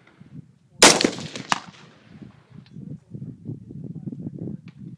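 A rifle shot about a second in, trailing off in an echo, followed half a second later by a second, thinner sharp crack. A low, uneven rumble follows.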